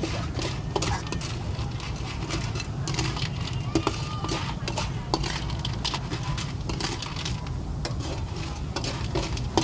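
A metal spatula scraping and clinking against a metal wok as shellfish and greens are stir-fried, with a sizzle and many short clicks. A steady low rumble runs underneath.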